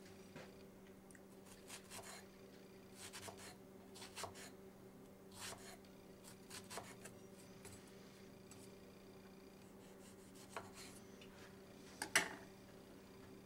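Knife slicing a strawberry on a wooden cutting board: a string of soft scrapes and light taps on the board, then a couple of sharper knocks near the end, the last the loudest. A faint steady hum underneath.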